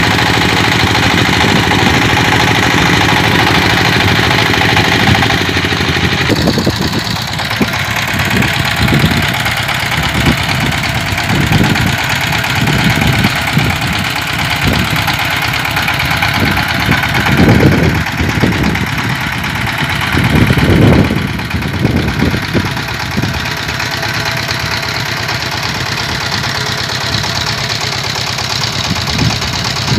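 Small stationary diesel engine running a winch that hauls on the line raising a transmission-tower gin pole, with irregular low surges from about six seconds on.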